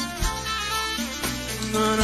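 Live band playing an instrumental passage without vocals: electronic keyboard with electric guitar, bass and drums.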